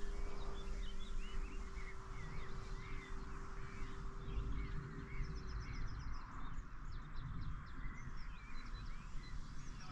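Small birds chirping and singing over a steady low rumble of wind on the microphone. A faint steady hum fades out about six seconds in.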